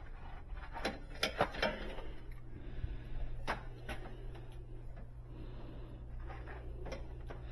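Handling noise from a thin cable being stretched and routed inside a sheet-metal air handler cabinet: light rubbing and rustling with a few sharp clicks and taps, most of them in the first half, over a steady low hum.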